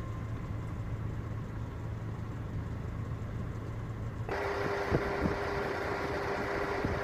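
A vehicle engine idling with a steady low hum. About four seconds in the sound cuts to louder engine-like running with a steady whine, wider noise and a few sharp knocks.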